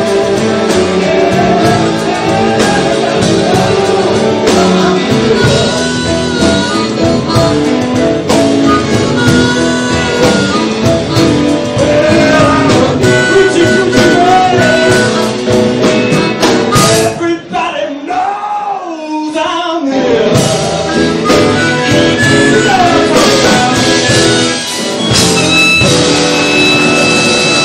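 Blues band playing live, with electric guitar, keyboard and amplified harmonica. About two-thirds of the way through, the band drops out for a couple of seconds, leaving one instrument playing bent notes on its own, then comes back in.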